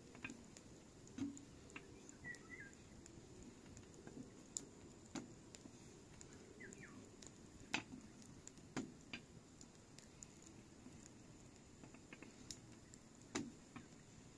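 Thin rolling pin clicking and knocking now and then against a metal tray as small rounds of flatbread dough are rolled out, a scatter of light irregular taps.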